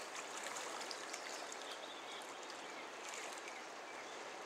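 Steady rush of a broad salmon river's current flowing past the bank.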